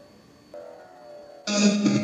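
Music cuts in abruptly about a second and a half in, after a quiet moment with a faint steady tone.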